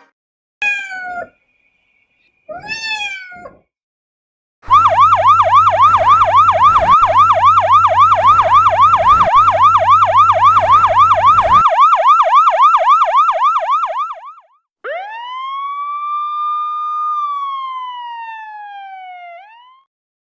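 A siren: two short swooping whoops, then a fast warbling yelp of about four cycles a second for some ten seconds, then a single long wail that rises, holds and slowly falls.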